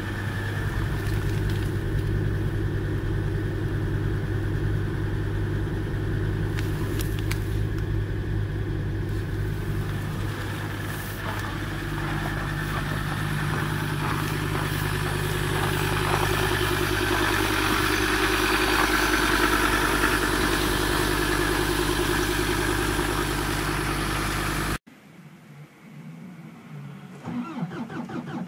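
Ford Transit van's diesel engine idling steadily after a cold start in hard frost. About 25 seconds in, it cuts off abruptly to a quieter recording in which a Hyundai Terracan 2.9 diesel, its glow plugs already cycled, begins cranking.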